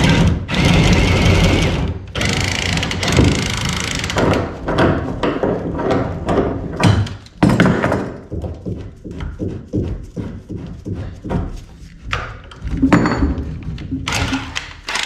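Knocking, clunking and rattling of a Milwaukee cordless tool being worked loose from the copper pipe it has got stuck on, at the end of a bath. A loud rasping noise fills the first few seconds, then comes a run of separate knocks and clunks.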